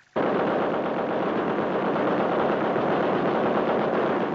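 .50-calibre Browning M2 heavy machine gun on an M113 armoured personnel carrier firing a long sustained burst, the shots running together into one continuous noise.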